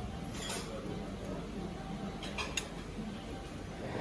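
Cutlery clinking against plates and dishes at a meal: a few short clinks about half a second in and again after two seconds, over a low steady background hum.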